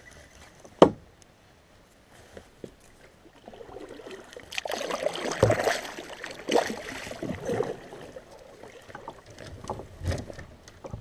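Water sloshing and splashing around a kayak on a moving river, louder from about four seconds in with swells roughly once a second. Before that comes a single sharp knock about a second in.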